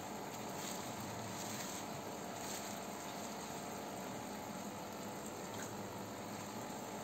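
Aquarium filter and aeration running: a steady watery hiss, with a few faint light splashes in the first few seconds.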